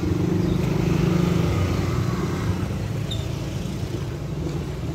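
An engine running with a steady low hum, strongest in the first second and a half and then easing off slightly.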